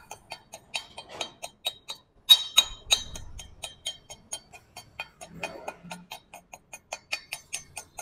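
Slag hammer chipping slag off freshly laid stick-weld beads on a 10 mm steel plate: quick metal-on-metal taps, about four a second, with a couple of harder strikes about two seconds in.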